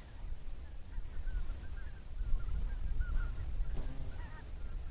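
Faint wetland birds calling: a scatter of short chirping calls, with one louder call about four seconds in, over an uneven low rumble.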